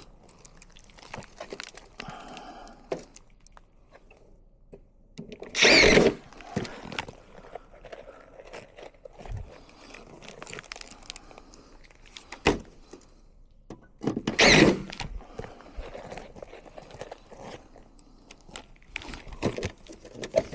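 Handling of a metal micro-mesh gutter guard: scattered clicks, taps and knocks, with two louder brief scraping rustles, about six seconds in and again about fourteen seconds in.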